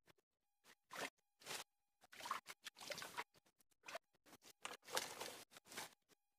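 Footsteps crunching and rustling through dry bamboo leaf litter, in irregular bursts.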